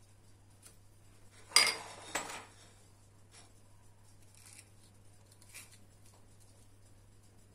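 Metal fork and knife clattering against a glass dessert plate while a slice of kunafa is cut and served, with two loud clinks about one and a half and two seconds in, then a few soft taps.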